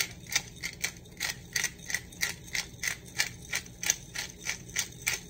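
Hand-twisted glass pepper grinder cracking black peppercorns, a crunch with each twist at about three a second.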